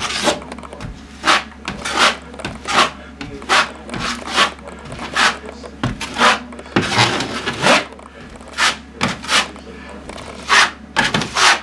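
A steel drywall taping knife spreading joint compound over patched drywall, scraping across the wall in repeated short strokes, about one or two a second.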